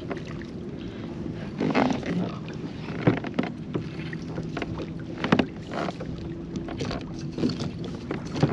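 Handling noise from fighting a hooked redfish from a kayak: a steady low hum under wind on the microphone, with several sharp knocks against the kayak.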